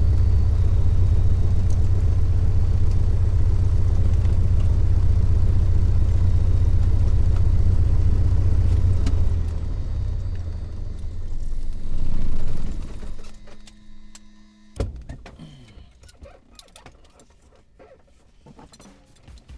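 Cessna 172 Skyhawk XP's six-cylinder engine running steadily at taxi power. It eases off, swells briefly about two-thirds of the way through, then stops as the engine is shut down. A sharp click follows soon after in the quiet cabin.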